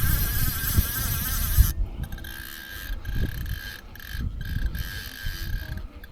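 Fly reel's click-and-pawl ratchet buzzing as a hooked trout pulls line off it, one continuous buzz for nearly two seconds, then short stop-start spurts. Low wind rumble on the microphone underneath.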